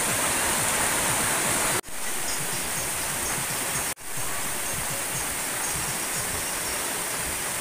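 Heavy rain pouring down steadily, as a dense even hiss. It cuts out for an instant twice, about two and four seconds in.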